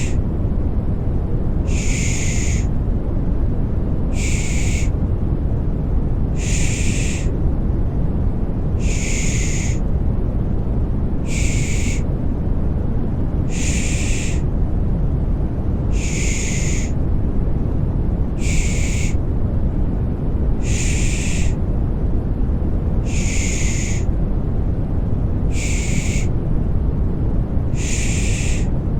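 A baby-soothing 'pış pış' shushing sound: short shushing hisses repeating about every two and a quarter seconds over a steady, deep white-noise hum.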